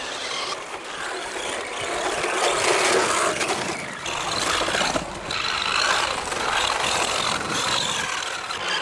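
Electric radio-controlled rally car driving on a gravel course: a noisy mechanical sound of motor, drivetrain and tyres on gravel that swells and fades several times.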